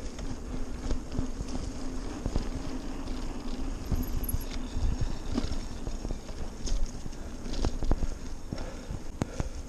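Mountain bike riding over a dry dirt singletrack: a steady rolling hum from the tyres, broken by frequent irregular clatters and knocks as the bike rattles over bumps.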